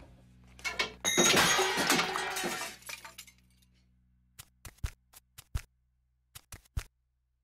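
Crash of a small contraption breaking apart, with glassy shattering and clattering, starting about a second in and lasting about two seconds, then a scatter of small sharp ticks and clicks as loose pieces land.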